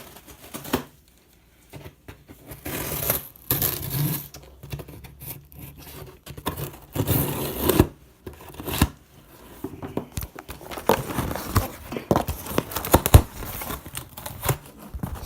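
Cardboard shipping box being cut and torn open: tape and cardboard tearing and scraping in irregular bursts, with some crinkling and a few sharp knocks from handling the box.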